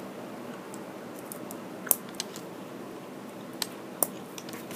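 Small plastic Lego pieces clicking as they are handled and pressed onto a brick build: a few short sharp ticks, the clearest about two seconds in, over a faint steady hiss.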